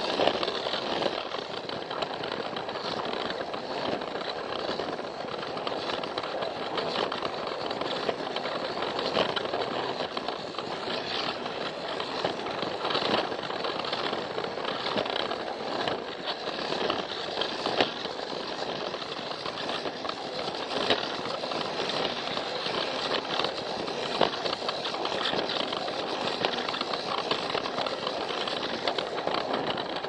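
Battery-powered Plarail toy train running along blue plastic track, heard from on board: a steady motor and gear whir with frequent irregular clicks and rattles from the wheels and track.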